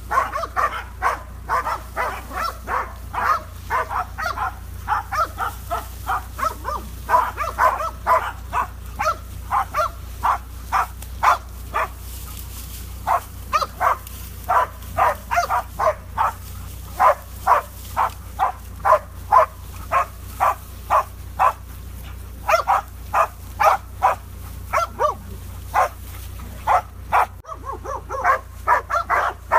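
Korean boar-hunting dogs barking rapidly and without pause, about two to three barks a second, as they hold a cornered wild boar at bay. A steady low hum runs underneath.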